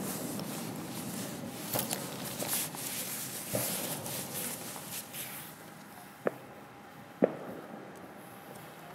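Fireworks display: the rumble of a burst fades out with a few scattered pops, then two sharp bangs about a second apart.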